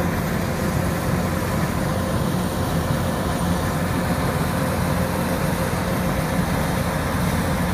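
Kubota DC-105X combine harvester's diesel engine and machinery running steadily under load as it cuts rice.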